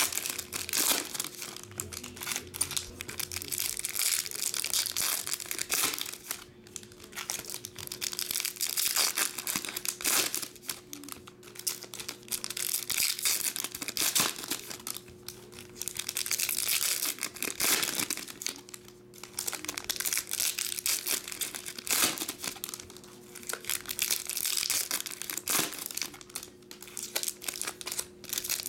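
Foil wrappers of baseball card packs crinkling and tearing as the packs are ripped open and handled, in irregular spells of rustling.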